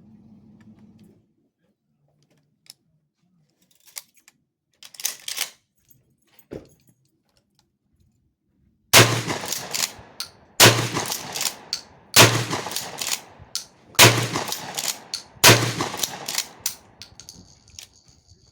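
Five shots from a 20-gauge Remington 870 pump-action shotgun, spaced about one and a half seconds apart, each followed by a short metallic clatter of the action being worked. Before the shots there are a few soft clicks and rattles of handling.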